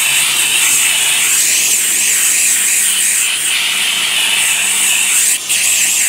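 McCulloch 1375 steam cleaner jetting steam straight through a fabric seat belt: a loud, steady hiss that dips for a moment about five and a half seconds in.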